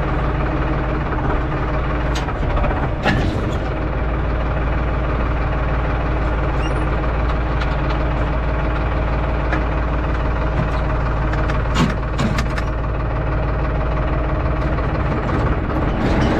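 Valmet 700 tractor engine running at a steady speed, with a few knocks and rattles from jolts on a rough road, the sharpest about three seconds in and around twelve seconds in.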